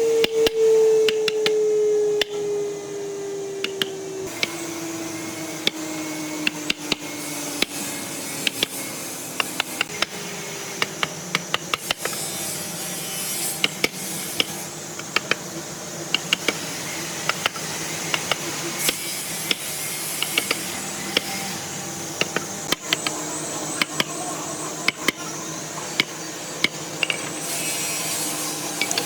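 Woodworking shop tool sounds: a machine's hum sinking in pitch as it winds down over the first ten seconds or so, then many irregular sharp clicks and knocks over a steady background noise.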